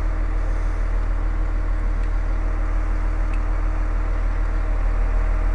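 An engine running steadily at idle: a constant low hum with a few steady tones, unchanging throughout.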